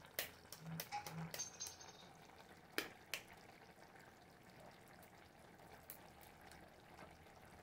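Light clicks and taps of a metal fork against an eggshell, several in the first few seconds and two sharper ones near the three-second mark; after that only a faint steady hiss.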